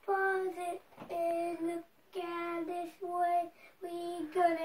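A young boy singing a simple tune in short held notes, about two notes a second, with brief breaks between phrases.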